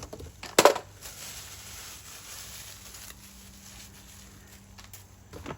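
A single sharp knock about half a second in, then faint rustling and small clicks as the unboxed trimmer's parts are handled and set down.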